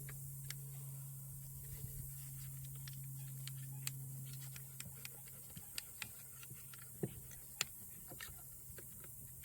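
Small, irregular plastic clicks and scratches as a pick works a power-window switch out of its brittle plastic door-panel housing, over a steady low hum that weakens about halfway through.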